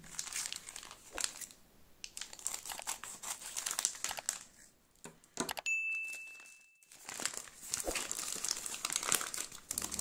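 Plastic mailer bag crinkling and tearing as it is opened by hand, then a plastic inner bag rustling. About halfway through, the crinkling pauses for a short, steady, high electronic tone.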